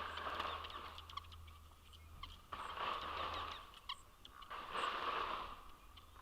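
Birds calling at a feeder: a scatter of short, high chirps, with longer noisy calls recurring about every two seconds.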